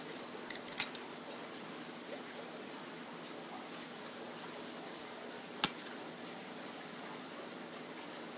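Coral cutters snipping through branches of a live Acropora colony: a few small clicks just under a second in, then one sharp snap of the blades about halfway through, over a steady hiss.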